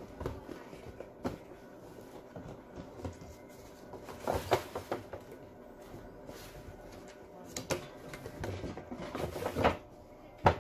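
Cardboard toy box being opened and a plastic display base slid out of it: irregular scraping, rustling and clicking of cardboard and hard plastic, with a sharp knock near the end.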